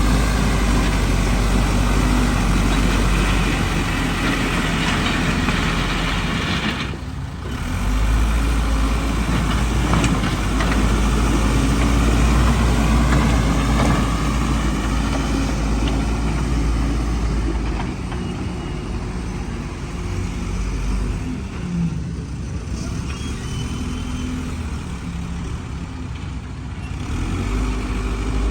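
Backhoe's diesel engine running steadily with a heavy low rumble, dipping briefly about seven seconds in and running somewhat quieter over the last third.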